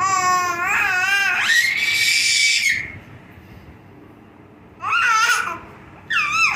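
High-pitched vocal cries that waver up and down, then glide up into a shrill squeal held steady for about a second. Two shorter cries come near the end.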